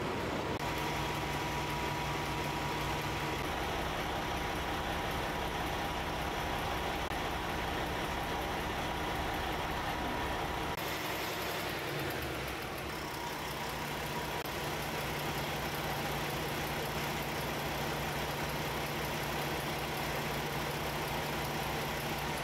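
PACCAR MX-13 inline-six diesel engine in a semi truck, idling steadily just after start-up. Its tone shifts slightly about halfway through.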